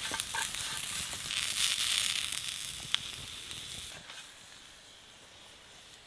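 Rockfish and shrimp sizzling on a small grill over a wood fire, with a few sharp clicks. The sizzle fades about four seconds in.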